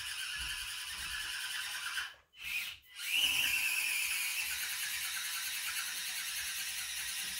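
Axial SCX24 mini RC crawler's small electric motor and gearbox whining as it climbs a steep ramp. The whine cuts out twice, briefly, about two seconds in, then comes back a little louder and higher.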